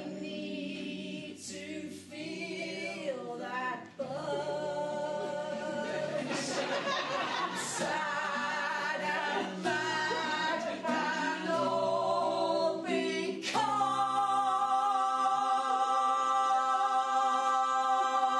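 Singing in a dramatic, old music-hall style, the voice wavering with vibrato over low held accompanying notes. It ends on one long held note for the last five seconds or so.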